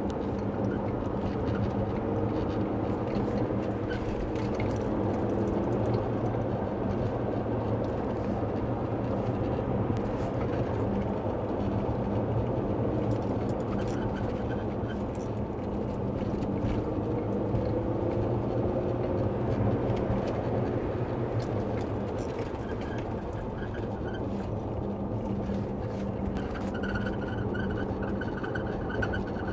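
Cabin noise of a 2009 Nissan Murano on the move: steady road and engine hum with short squeaks and clicks scattered through it, and a steady high whine coming in near the end. The squeak is an unidentified, almost constant noise from the passenger front side, in the dash or wheel area, which tightening a loose bumper did not cure.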